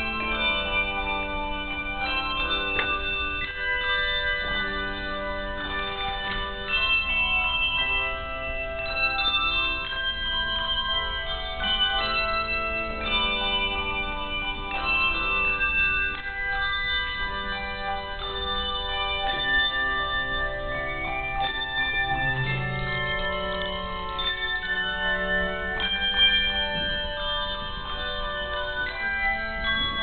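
Handbell choir playing: many handbells rung in turn, their sustained tones overlapping in changing chords.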